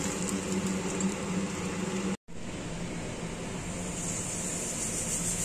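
Hot mustard oil sizzling steadily in a kadai as prawns fry, with a short break about two seconds in.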